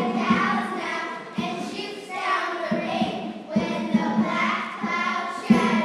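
A group of children singing together, with short low thuds every second or so under the voices.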